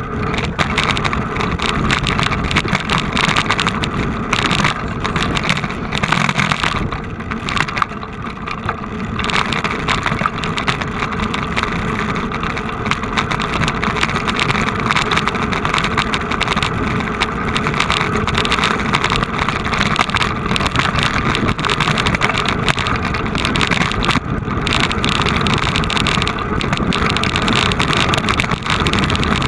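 Steady, continuous rumbling noise of a moving vehicle, with no distinct engine note standing out.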